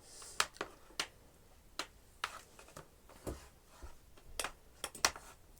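Irregular sharp clicks and taps of hard plastic, about seven over several seconds, as vacuum cleaner attachments are handled.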